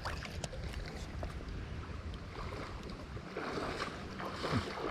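Wind rumbling on the microphone over a flowing creek, with a few small clicks of handling and a louder splashy hiss near the end.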